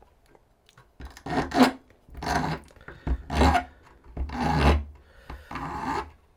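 Hand file worked back and forth on a brass ring, about five rasping strokes roughly a second apart, starting about a second in, to clean off excess metal.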